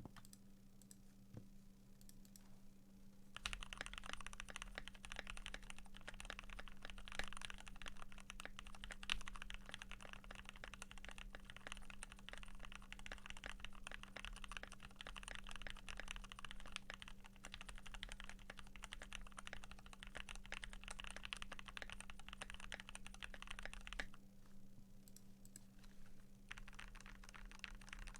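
Fast, continuous typing on a Keychron Q1 gasket-mounted aluminium mechanical keyboard with lubed Gateron Pro Yellow linear switches and PBT keycaps. The typing starts a few seconds in, stops for about two seconds near the end, then resumes, over a steady low hum.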